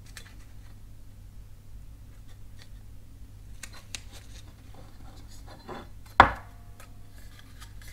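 Quiet handling sounds of masking tape being pressed and wrapped around a metal airsoft rifle outer barrel: light rustles and small ticks, with one louder knock about six seconds in.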